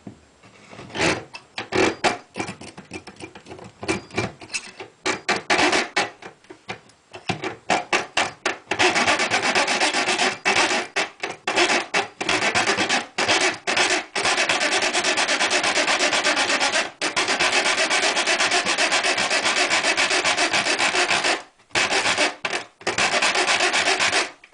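A metal-cutting saw blade rasping back and forth through the metal mounting bar of an old electrical outlet box, working between the box and the drywall. The strokes start short and stop-start, then run fast and steady from about nine seconds in, with a few brief pauses.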